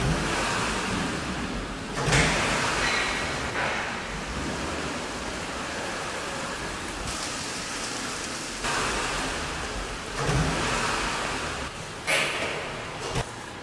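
Steady heavy rain with several swells of thunder, the loudest about two seconds in and again in the last few seconds.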